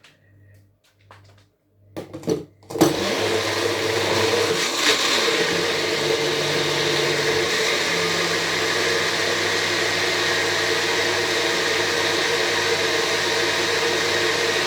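Electric blender switched on after a couple of clicks about two seconds in, then running steadily at full speed, blending a thick avocado, egg and aloe vera mixture. Its motor note rises slightly about midway.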